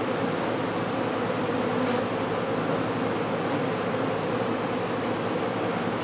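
Honey bees of an exposed hive buzzing in a dense, steady hum as the colony is worked by hand during a removal.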